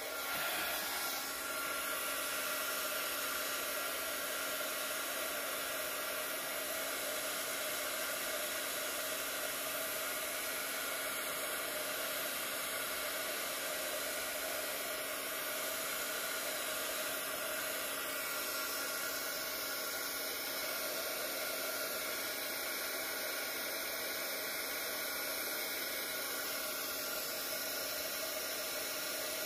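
Handheld heat gun switching on and running steadily: a hiss of blown air with a faint, even motor hum. It is aimed over freshly poured epoxy resin in a coaster mold to pop surface bubbles.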